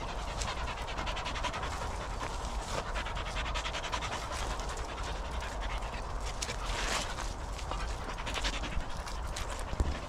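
Dog panting fast and steadily, over a steady low rumble, with a short knock near the end.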